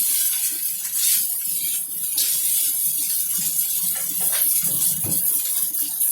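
Fried rice sizzling in a hot pan as it is stirred: a steady hiss with occasional scrapes of the spatula.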